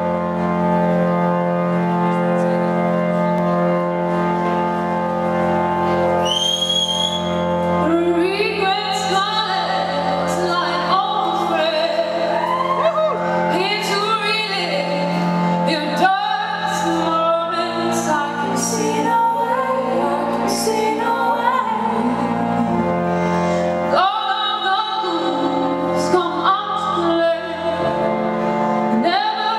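Live rock band with a woman singing lead: held organ chords at first, then her voice comes in about eight seconds in and carries the melody over the band.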